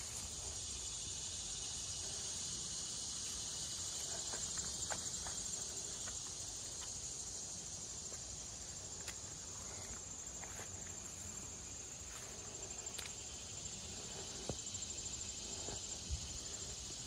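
Steady, high-pitched chorus of crickets and other insects, trilling with a fast, even pulse, with a few faint clicks of footsteps on the rocky path.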